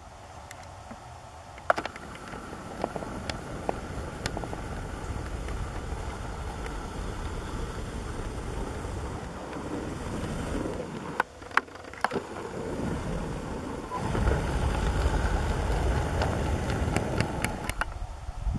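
Steady wind noise and rumble on the microphone, growing stronger in the second half, with a few short sharp cracks and clicks scattered through it.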